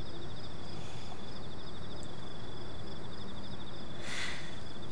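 Insects chirping in a steady, rapid high-pitched trill, over a constant low background rumble, with a brief rustle about four seconds in.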